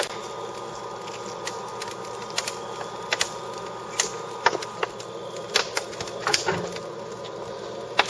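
Freshly lit wood fire of scrap pine and poplar lumber crackling in the firebox of a HOSS 500HE outdoor wood furnace, with irregular sharp pops. Under it runs a steady hum from the furnace's draft blower, just switched on to make the fire burn faster.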